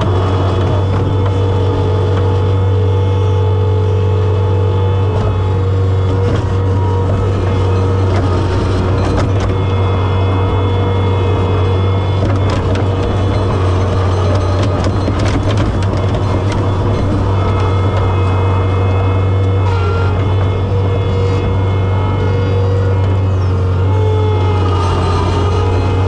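John Deere 675B skid steer's engine running steadily with higher tones that come and go, and a few sharp knocks as the loader works.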